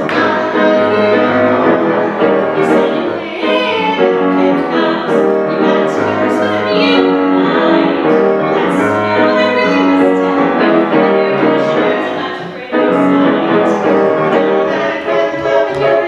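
A woman singing with grand piano accompaniment, with a brief drop in the music about twelve and a half seconds in before it comes back in sharply.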